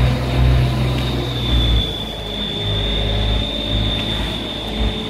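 A steady low engine hum with a thin, steady high-pitched whine over it; the hum dips slightly in pitch about two seconds in.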